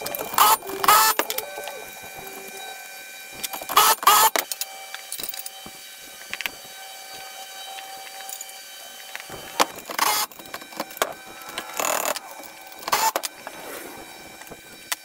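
Steel engine-hoist parts and loose bolts clanking and rattling as they are handled during assembly: a handful of sharp knocks and rattles, around the first second, about four seconds in, and in the last few seconds.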